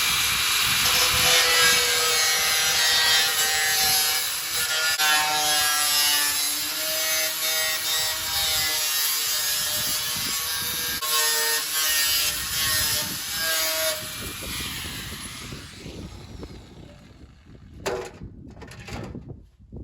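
Angle grinder cutting or grinding metal, its pitch wavering under load, then spinning down about fourteen seconds in; a few sharp knocks follow near the end.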